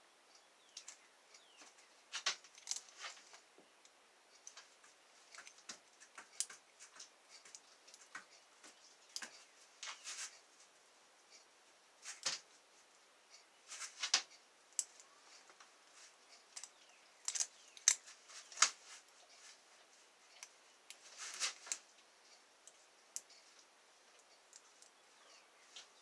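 Lock pick scraping and clicking against the pins inside the keyway of a six-pin Master Lock ProSeries padlock core, with tension held on the core. The clicks and short scrapes come at irregular intervals.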